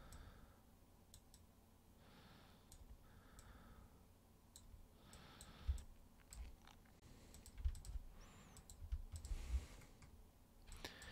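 Faint, scattered computer mouse clicks and keyboard key presses, with a few soft low thumps in the second half.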